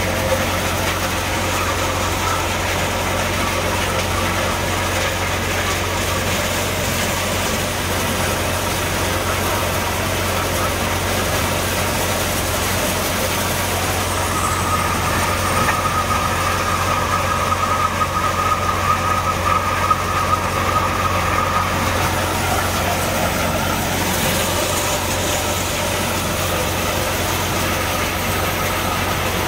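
Multi-crop thresher running steadily while shelling maize, a continuous machine hum with rattling. It turns louder and rattlier for several seconds past the middle, as shelled kernels stream off the outlet chute into a sack.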